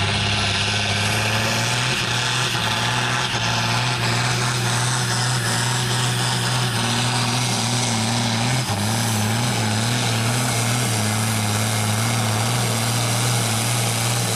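Volvo 810 tractor's diesel engine running flat out under full load as it drags a tractor-pulling weight sled, a loud steady drone. About halfway through, its pitch starts to waver.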